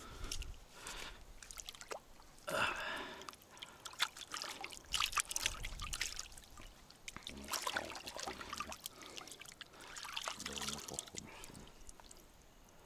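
Water splashing and trickling in irregular bursts, with small sharp knocks, as a caught fish is handled in the shallows.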